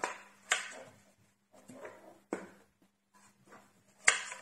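A 3D-printed plastic foldable foot on a laser engraver's aluminium frame being swung and snapped into position by hand. Three sharp clicks about two seconds apart, with softer rubbing and handling sounds between them.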